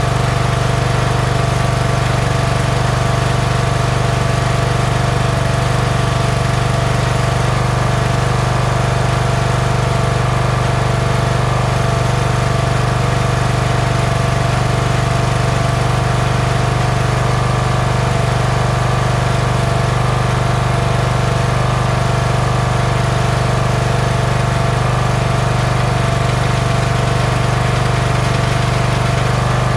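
Kohler engine of a Toro LX460 lawn tractor running steadily at a constant speed.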